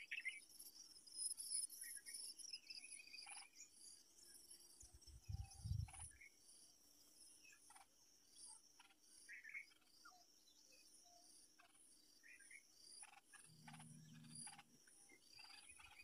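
Faint insect chorus, a high chirping that pulses evenly, with a few short chirps scattered through it. A brief low rumble comes about five seconds in.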